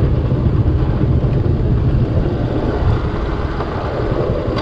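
Motorcycle engine running as the bike is ridden, a steady low rumble mixed with road noise.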